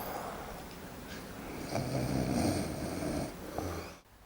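A man snoring in his sleep, with one drawn-out snore swelling in the middle before the sound cuts off abruptly near the end.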